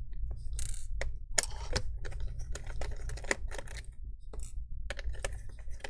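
Irregular light clicks, taps and short scrapes of a small screwdriver and fingers working the tiny screws that hold a laptop speaker in the chassis, over a steady low hum.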